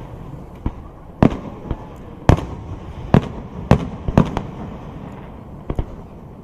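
Fireworks display going off: about ten sharp bangs at uneven intervals, some in quick pairs, over a steady low background noise.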